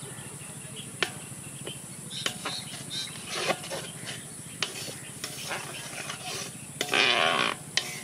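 Hands rubbing chilli masala onto plucked quail over a plastic plate: scattered light clicks and rustles of handling, with a louder rustling noise lasting about a second near the end.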